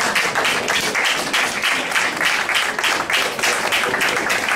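Audience applauding: many hands clapping together in a dense, continuous patter.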